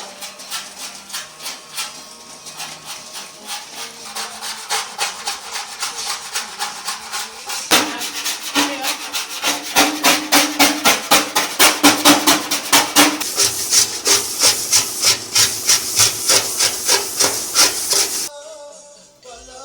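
Rhythmic abrasive rubbing strokes, about two a second, becoming faster and louder about eight seconds in, then stopping abruptly near the end.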